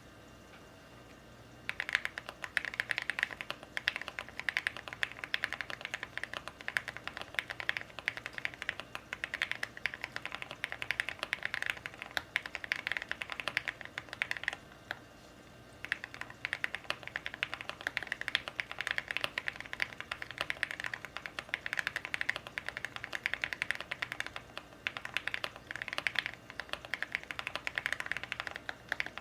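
Fast, continuous typing on an Owlab Mr. Suit custom mechanical keyboard with linear Everglide Aqua King switches lubed with Krytox 205g0, a polycarbonate plate, full foam and Aluvia aluminium keycaps. The keystrokes begin after a second or two, break off for about a second midway, then resume.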